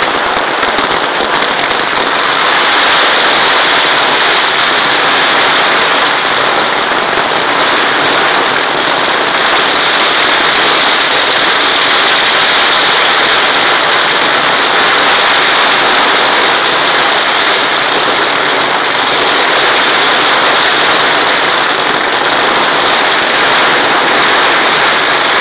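Ground fireworks going off in a dense, continuous barrage of crackling, the reports so close together that they merge into one steady loud noise without a pause.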